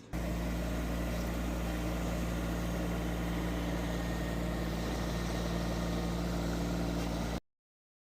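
An engine running steadily at idle, starting abruptly and cutting off suddenly about seven seconds in.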